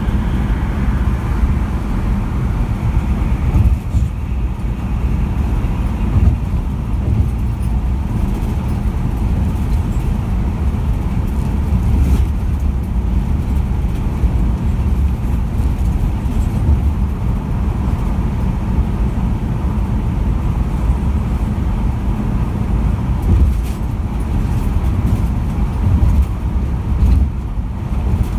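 Steady road noise of a vehicle travelling at freeway speed: a continuous low rumble with tyre and wind hiss over it.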